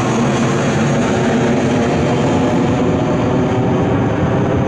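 British Airways twin-engine jet airliner passing overhead, its jet engines making a loud, steady noise.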